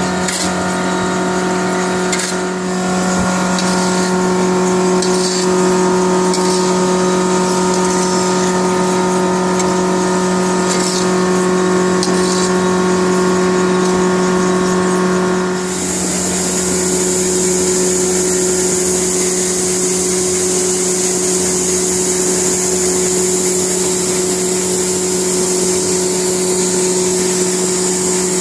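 Machinery in a fertilizer workshop running with a steady hum, with short scraping strokes over the first twelve seconds or so. About halfway through, a loud steady hiss takes over and the upper part of the hum fades.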